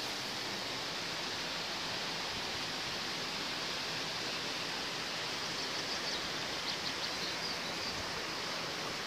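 Steady rushing of the Mondigah river, an even noise with no let-up. A few faint high chirps come about six to seven seconds in.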